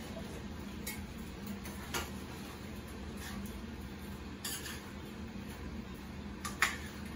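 A handful of short clinks and knocks from a frying pan and utensils being handled on an electric stovetop, the sharpest near the end, over a steady low hum.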